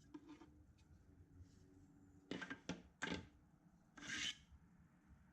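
Quiet handling of 3D-printed plastic skateboard holders: a few light knocks a little past two seconds in and around three seconds, then a short rub about four seconds in.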